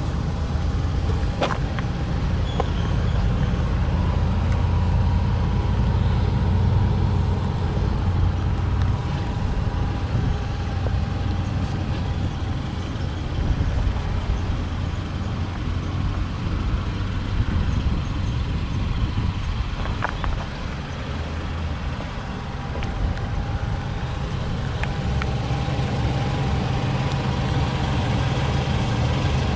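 Car engine idling steadily: a low rumble with a faint steady hum above it.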